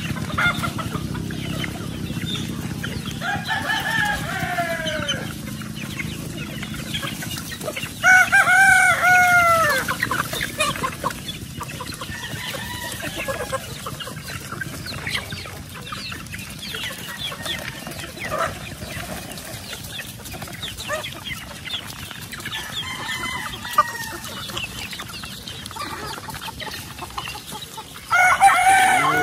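A flock of chickens clucking around feed while roosters crow several times, the loudest crows about eight seconds in and again near the end.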